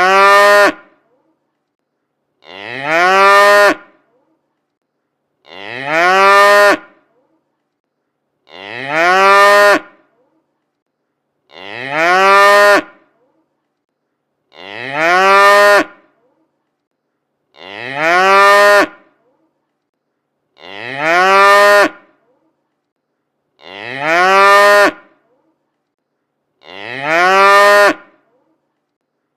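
A cow mooing: ten identical drawn-out calls, each rising in pitch and then holding, repeating about every three seconds with silence between.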